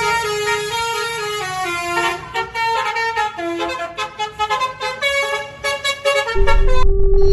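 A tour bus's telolet basuri musical horn playing a melody of stepping notes over a low engine rumble. After about two seconds the notes turn short and choppy. Near the end one note is held as a loud low rumble comes in.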